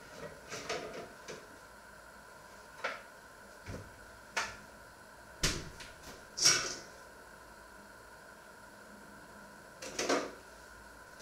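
Household kitchen sounds: about eight separate short knocks and clatters, the loudest about six and a half seconds in, over a faint steady hum.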